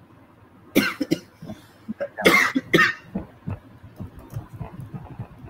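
A man coughing: two coughs about a second in, then two louder coughs about two and a half seconds in.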